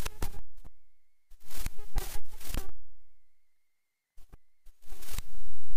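A voice speaking in three short phrases with pauses between them, each trailing off in an echo, and a faint steady high-pitched whine in the gaps.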